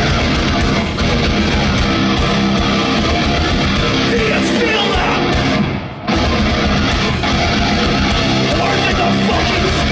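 Metalcore band playing live at full volume, with distorted electric guitars and drums, heard from within the crowd. The music breaks off briefly about six seconds in, then comes straight back in.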